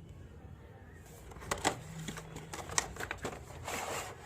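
Headphone retail box being opened by hand: scattered clicks, taps and rustling of the packaging, starting about a second in.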